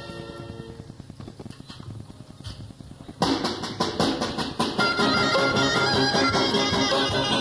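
A student orchestra on an old cassette recording. A held chord dies away, quiet regular percussion strokes follow, and about three seconds in the full band comes in loudly with brass and drum in a lively dance rhythm. The tone is thin and shrill, which the conductor puts down to half-size violins and out-of-tune wind instruments.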